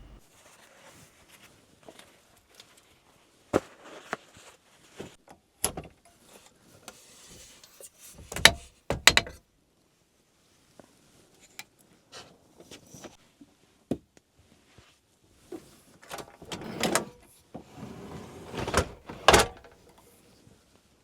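Doors and latches being opened and shut inside a motorhome: scattered sharp clicks and knocks with sliding and rustling in between. The loudest knocks come about eight to nine seconds in and again near the end.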